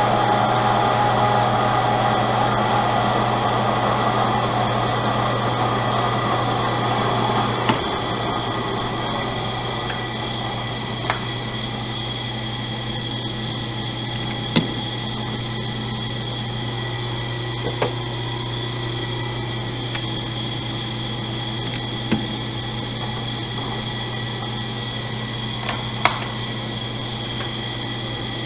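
Enco 110-1340 metal lathe running with a steady hum and whine, cutting Delrin plastic for about the first eight seconds. After that it runs more quietly, with a few sharp clicks spread through.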